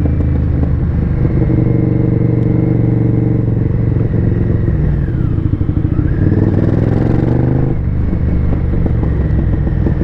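Honda VTR V-twin sport-bike engine running under way, heard from the rider's seat. It pulls steadily, then rises in pitch as it accelerates for a few seconds, and the note drops abruptly about eight seconds in.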